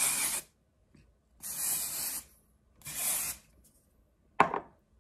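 Aerosol texturizing hair spray hissing in short bursts as it is sprayed onto the hair: the end of one burst, then two more. A single sharp knock near the end.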